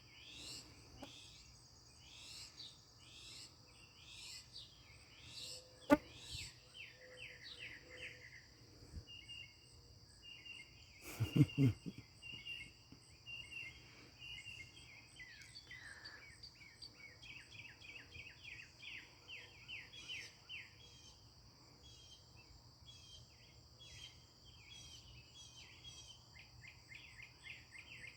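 Northern mockingbirds singing a long string of varied phrases: short sweeping whistles and rapid stuttering runs of repeated notes, imitations of other birds' calls. A steady high-pitched drone runs underneath, with a sharp click about six seconds in and a brief thump a little before halfway.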